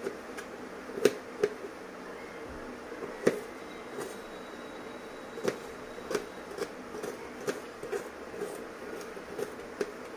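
Kitchen knife chopping on a plastic cutting board while dicing vegetables: short, sharp knocks at an uneven pace, about fifteen in all, over a steady faint hiss.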